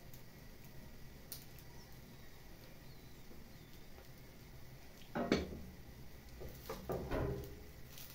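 Spatula scraping and knocking against a nonstick frying pan as it is worked under an omelette to loosen and lift it: a short burst of strokes about five seconds in, then several more around seven seconds.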